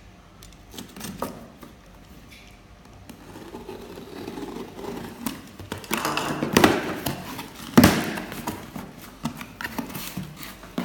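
Cardboard shipping box being opened by hand: the cardboard and its flaps scrape and rustle, growing louder from about four seconds in, with a sharp knock just before eight seconds and scattered clicks after.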